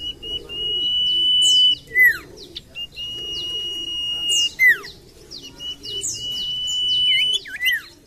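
A songbird singing: three long level whistles, each a second or more, each ending in a steep downward-sliding whistle, with quick falling high-pitched notes between them. The falling whistles about two seconds in and near the middle are the loudest notes.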